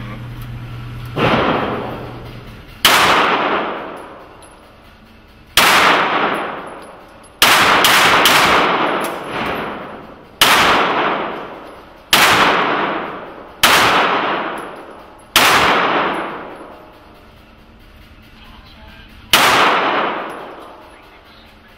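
Handgun shots in an indoor shooting range, about ten of them spaced one to four seconds apart, each followed by a long echoing decay. Three come in quick succession about a third of the way in.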